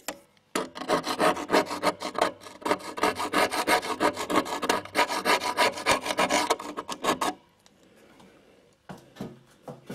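Close, loud rubbing and scraping in rapid, dense strokes for about seven seconds, stopping abruptly, followed by a few faint clicks.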